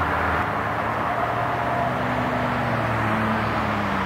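Steady rumble of engine noise, with a low tone that slowly falls in pitch over the second half, as from a passing engine.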